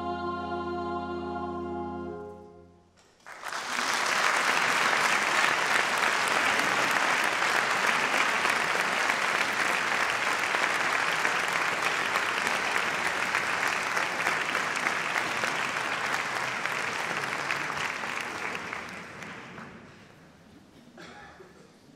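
A mixed choir holds its final chord, which stops about two and a half seconds in. After a brief pause the audience breaks into applause that runs for about fifteen seconds and dies away near the end.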